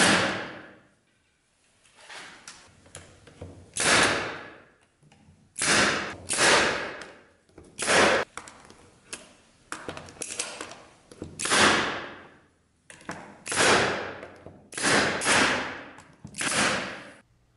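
Pneumatic brad nailer firing about a dozen separate shots, a second or two apart, each a sharp crack with a short fading tail, as nails are driven through layered plywood into a wooden frame.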